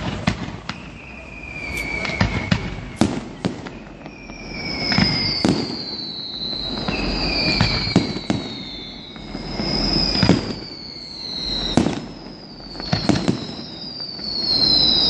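Aerial fireworks display: a dozen or so sharp bangs of bursting shells over a low rumble, with several long firework whistles, each falling slowly in pitch and overlapping the next.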